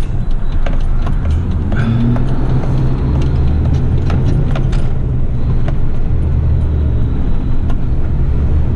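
Heavy rigid garbage truck's diesel engine and road noise heard from inside the cab while driving on a wet road: a steady low drone with a noise haze over it, and scattered light clicks and rattles.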